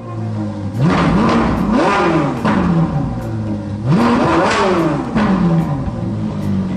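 Truck engine sound effect revving up and dropping back three times, then running low and steady.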